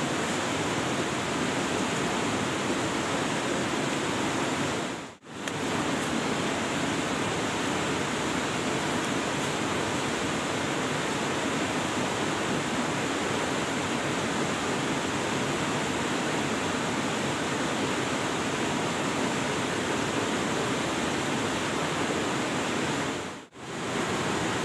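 Steady, even rushing noise with no clear events in it. It drops out briefly twice, about five seconds in and near the end.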